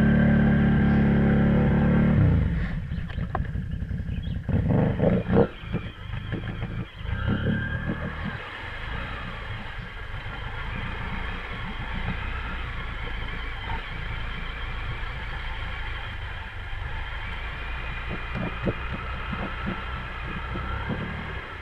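Can-Am Renegade ATV engine revving hard as its wheels churn in deep swamp water, then dropping off suddenly about two seconds in. Heavy splashing and sloshing of water around the bogged-down quad follow for several seconds, settling to a steadier sound of churned water.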